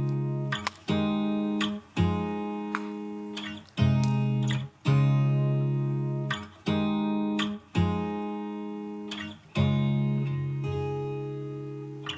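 Background music: slow guitar chords, strummed about once every one to two seconds, each left to ring and fade before the next.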